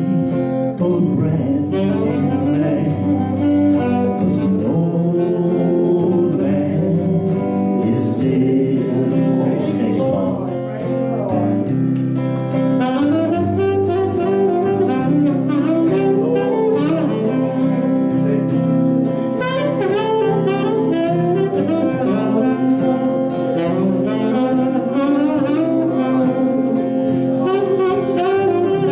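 Saxophone solo over electric guitar accompaniment in a live gospel worship song, the saxophone carrying a moving melody over a steady beat.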